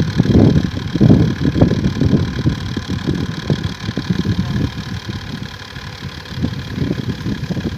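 Engine of a wheat-harvesting machine running, an uneven low rumble with a steady faint whine above it.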